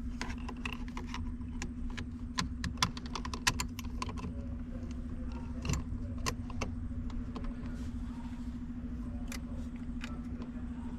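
Irregular metallic clicks and clinks of small nuts and bolts and a hand tool as a steering wheel is bolted onto its hub, over a steady low hum.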